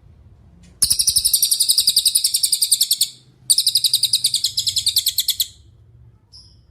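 Cililin songbird singing two rapid, loud trills of about two seconds each, separated by a short pause, then one short high note near the end.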